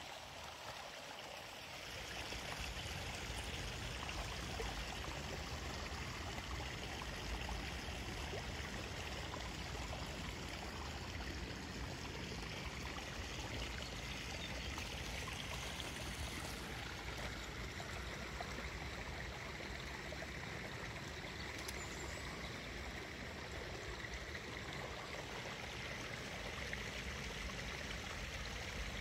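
Steady rush of running water from a stream, a little louder from about two seconds in.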